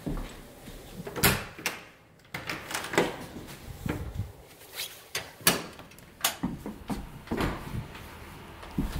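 A paneled wooden back door being unlatched and opened by its knob, then footsteps out onto the porch: a string of separate knocks and clicks.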